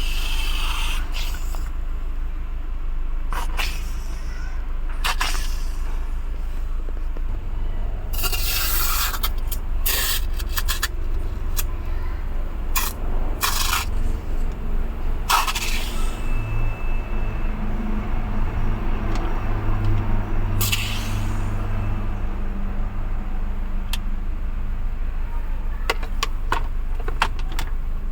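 A car running with a steady low hum, with short hissing and scraping bursts from the air-conditioning cleaning work, several of them clustered in the middle and one more later on.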